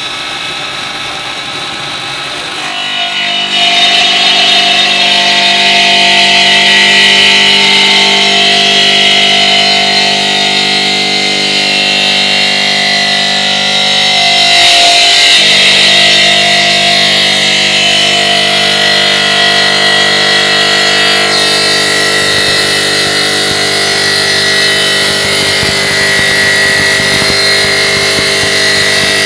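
OSC TITAN 5-axis CNC stone cutting machine running and cutting stone: a loud, steady machine whine with several held tones, which grows louder about three seconds in and shifts briefly about halfway through.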